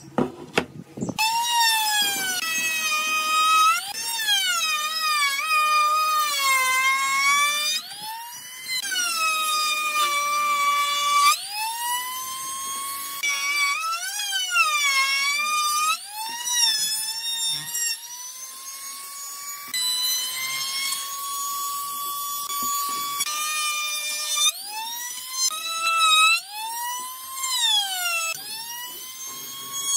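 Handheld trim router running while routing the edges of a wooden board, starting about a second in after a few knocks. Its high whine keeps sagging and climbing back in pitch as the bit bites into the wood and frees up again, holding steadier and higher for a few seconds in the middle.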